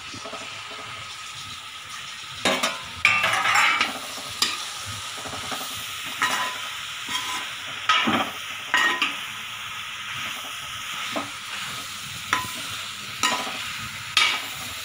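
Chicken pieces, tomatoes and onions frying in coconut oil in a metal pan, sizzling steadily, while a metal spoon stirs them, scraping and clinking against the pan at irregular intervals.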